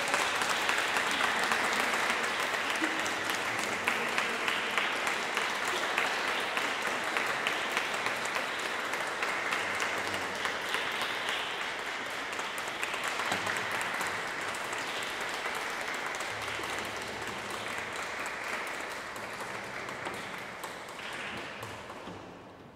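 Audience applauding: a dense patter of many hands clapping that holds steady, then thins and fades out near the end.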